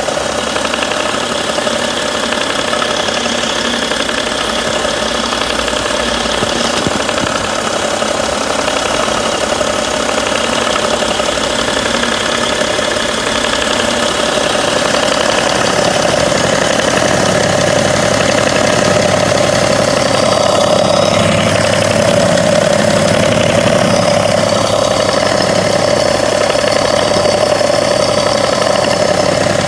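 2011 BMW 335d's three-litre twin-turbo straight-six diesel idling warm, with a slight intermittent ticking from the front of the engine near the crankshaft damper pulley during the first part, a fault the owner has not been able to identify. About halfway through the idle grows a little louder and deeper.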